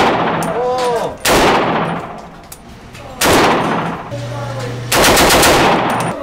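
A German WWII StG 44 (Sturmgewehr) assault rifle firing its 7.92×33mm Kurz intermediate cartridge in four short full-auto bursts of about a second each, each followed by a brief echo off the indoor range.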